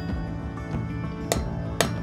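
Blacksmith's hand hammer striking hot iron on an anvil, two ringing blows about a second and a quarter in, half a second apart. Instrumental background music plays steadily under them.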